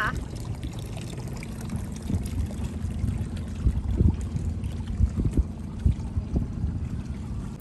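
Water lapping and trickling against a boat hull and floating pontoon, over a steady low rumble, with a few short soft knocks in the second half.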